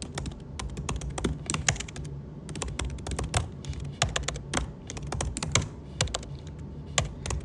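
Fast typing on a keyboard: quick runs of key clicks broken by brief pauses, one just after two seconds in.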